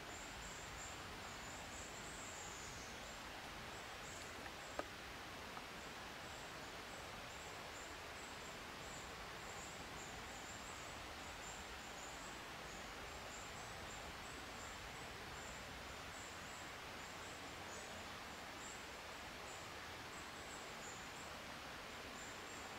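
Steady hiss of quiet woodland ambience with a thin, high-pitched chirping that keeps going, and a single sharp click about five seconds in.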